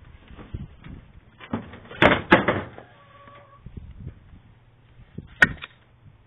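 Wooden knocks and clatter, a dense burst of them about two seconds in and a single sharp knock near the end.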